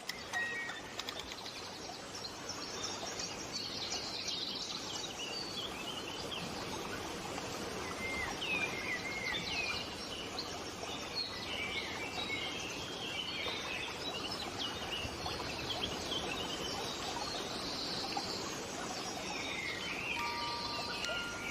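Many small birds chirping and singing over a steady background hiss, with short rising and falling calls following one another throughout.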